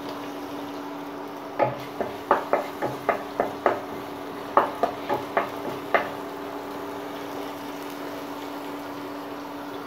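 Wooden spatula stirring spice paste frying in oil in a non-stick pot, with a run of knocks and scrapes from about one and a half to six seconds in. A steady sizzle and a low steady hum run under it.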